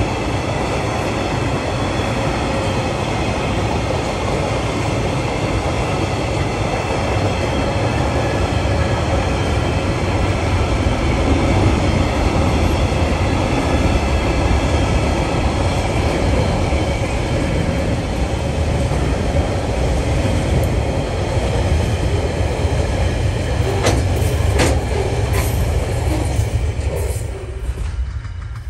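Freight train wagons, flat wagons and coal hoppers, rolling past with a steady rumble and rattle of wheels on rail. A few sharp clanks come near the end, and the noise falls away as the last wagon goes by.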